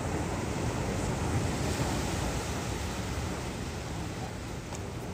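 Ocean surf: a steady rush of waves washing, swelling slightly about a second in.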